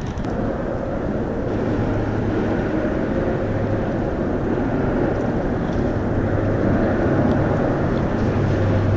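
Steady mechanical drone with a low hum that strengthens about a second and a half in.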